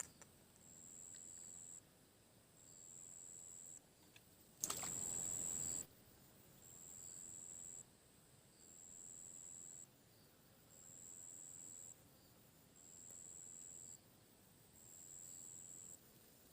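An insect calling in long, high-pitched pulses, one about every two seconds. About five seconds in, a brief, louder rush of noise cuts across it.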